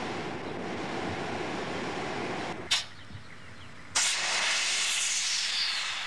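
Steady rushing of a coal furnace's air blower, broken by a sharp click. About four seconds in, steam starts jetting out with a loud hiss that slowly fades.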